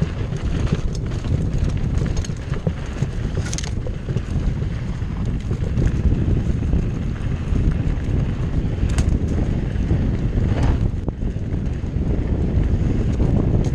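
Wind buffeting a chest-mounted action camera's microphone while a Cannondale Jekyll mountain bike rolls along dirt singletrack, with a low, steady rumble from the tyres and riding. A few sharp clicks and rattles from the bike come through, about a third of the way in and twice more near the end.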